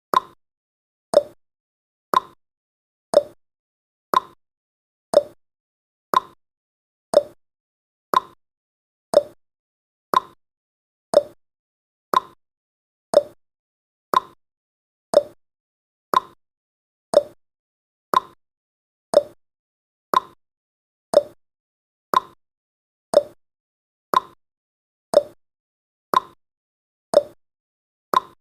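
Countdown timer sound effect: one short pitched blip every second, steady and identical, marking off each second of the countdown.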